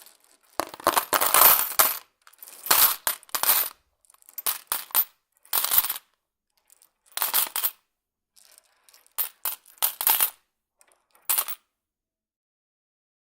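Handfuls of coins dropped into a Coinstar coin-counting machine, clattering and jingling in about six bursts with short pauses between them, then stopping near the end.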